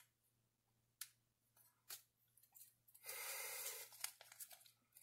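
Small clear plastic bag crinkling as it is picked up and handled, a rustle lasting about a second around three seconds in, with a few light taps and clicks before and after.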